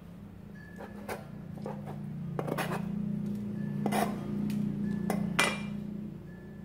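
Kitchen knife knocking and scraping on a plastic cutting board as sliced shiitake mushrooms are cut and swept off the board, about six sharp knocks in all. A steady low hum runs underneath.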